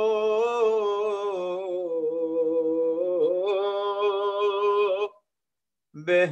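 A single unaccompanied male voice chanting an Urdu marsiya (elegy), holding one long wavering note for about five seconds, breaking off briefly, then starting the next line near the end.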